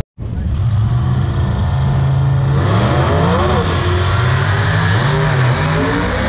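Drag race car engines running and revving, the pitch rising and falling several times, with a rushing noise that grows from about two and a half seconds in.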